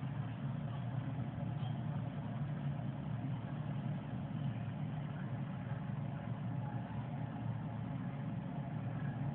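Steady low mechanical hum, with no breaks or changes.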